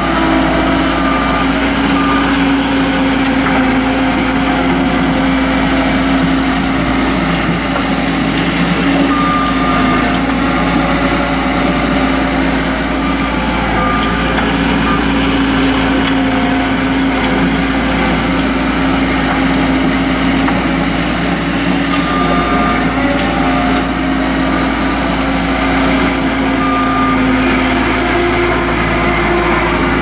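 New Holland LS190 skid steer's diesel engine running steadily at working revs as the machine drives and pushes dirt with its bucket, the engine note wavering slightly.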